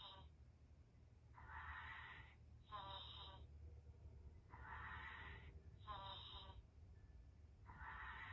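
Faint electronic sleeping sounds from an interactive plush bear toy. A breathy in-breath is followed by a short snoring out-breath, and the cycle repeats about every three seconds.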